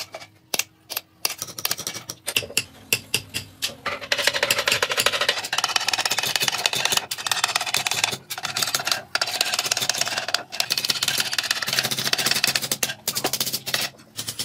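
Small hammer tapping a steel punch into the side of a wooden bowl: a run of light, sharp taps, spaced out at first, then quick and nearly continuous from about four seconds in, with a few brief pauses.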